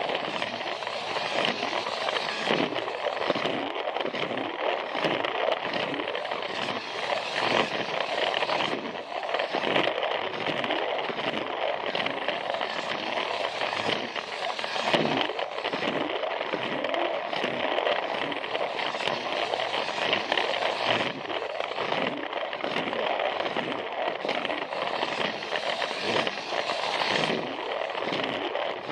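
Plarail battery-powered toy train running steadily along plastic track, its small motor and gears making a continuous rattling whir, with regular clicks roughly two a second as the wheels cross the track joints.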